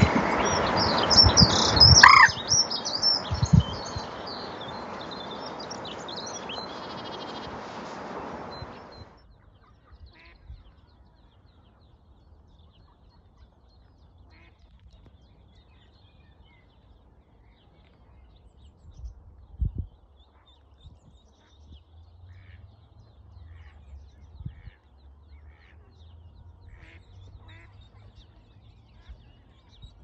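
Birds calling, with a duck quacking and small birds chirping, loudest in the first couple of seconds. A steady rushing noise runs under them and cuts off suddenly about nine seconds in, leaving only faint scattered sounds.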